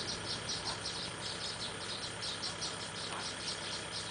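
Insect chirping in quick, even pulses, about five a second, over the low steady hum of small tractor engines working a flooded rice paddy.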